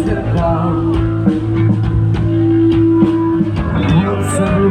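Live band playing a rock song over loud speakers: electric guitar, bass and drum kit, with held low notes and a steady drum beat.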